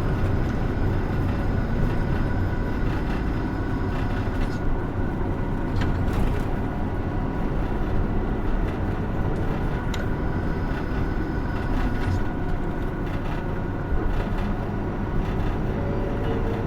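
Steady cabin running noise of a Hino Rainbow II diesel route bus under way: a continuous engine and road drone with a few faint clicks.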